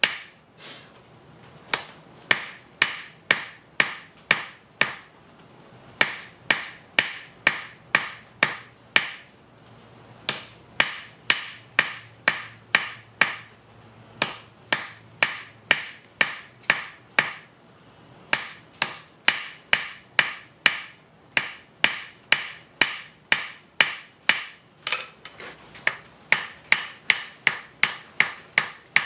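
Hand hammer striking a hot rail spike on a mild steel block anvil, about two blows a second in runs of several seconds with short pauses. Each blow gives a sharp metallic ring as the spike's end is drawn to a taper.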